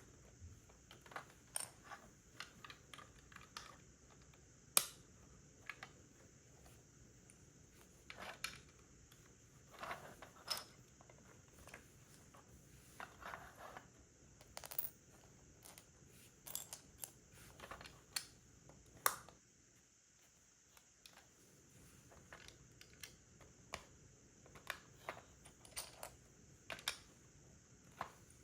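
Plastic Lego bricks clicking and tapping as pieces are handled and pressed together: scattered, irregular clicks, with a short lull about twenty seconds in.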